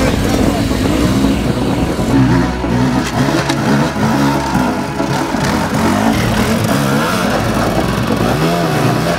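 Dirt bike engines revving hard under load on a steep climb, the pitch swooping up and down again and again as the throttle is blipped and released.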